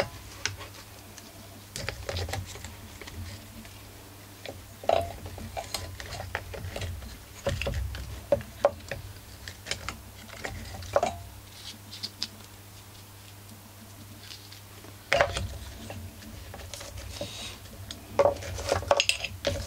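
Gloved hands handling and fitting recoil starter parts onto a small two-stroke engine's aluminium crankcase: scattered clicks, taps and scrapes of plastic on metal, in clusters with quiet gaps between, over a low steady hum.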